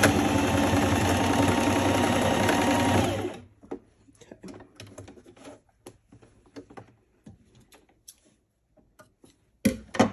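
Domestic electric sewing machine stitching at a steady speed, stopping about three seconds in. Faint clicks and rustles follow, then a brief knock near the end.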